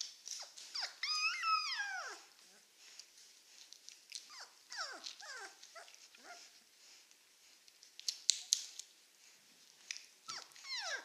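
A 19-day-old Czechoslovakian wolfdog puppy giving high-pitched cries that fall in pitch: one long cry about a second in, then a string of short squeaks, with two sharp clicks around eight seconds in and more cries near the end.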